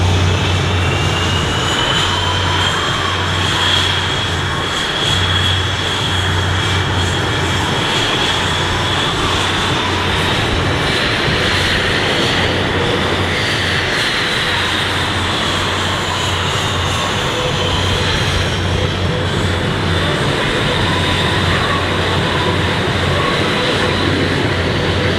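Boeing F/A-18 Hornet jet engines running with a steady loud noise and a high whine that slowly rises, then glides down past the middle.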